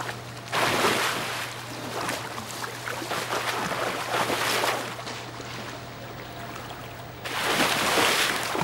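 Water splashing and churning at the surface as bull sharks thrash and strike at bait on a feeding pole, in surges: loud from about half a second in, easing off past the middle, and loud again near the end. A steady low hum runs underneath.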